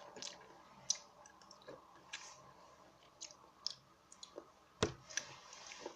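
Faint, scattered wet mouth clicks of someone chewing a piece of marinated seafood (mussels and squid tentacles in oil), with the sharpest click a little before five seconds in.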